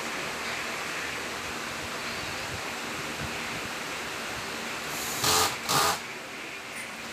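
Steady, even hiss of workshop background noise. About five seconds in come two short, loud hissing bursts, half a second apart.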